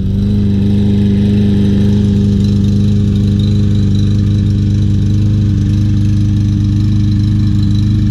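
Troy-Bilt TB200 mower's 150cc Briggs & Stratton 625EX engine running at a steady speed just after starting. It runs a little rough with an engine miss that a cleaned carburetor, a new spark plug and a new flywheel key have not cured.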